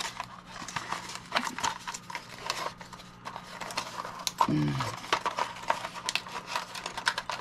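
Irregular light clicks and taps of hard computer parts being handled, over a steady low hum, with a brief murmur of a voice about halfway through.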